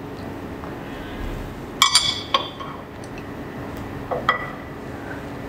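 Chopsticks clinking against tableware: a quick cluster of ringing clinks about two seconds in, then two more near four seconds, over a faint steady low hum.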